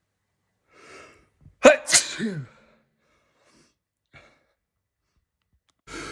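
A person sneezes once: a short in-breath, then a sudden loud burst that trails off in a falling voiced note. Near the end another in-breath begins.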